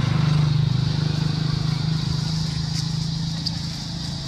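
A motor vehicle engine running with a steady low hum, easing off slightly toward the end.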